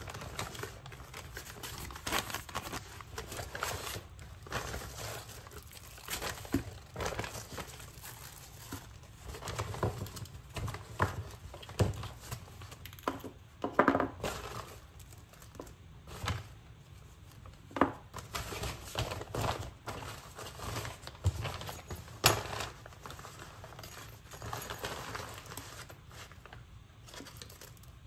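Kraft paper bag and plastic packaging rustling and crinkling in irregular bursts as hands unpack it, with a few sharper knocks as items are set down on the desk.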